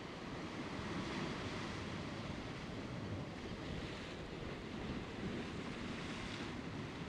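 Rough sea surf washing and breaking over shore rocks, a steady rush that swells a few times.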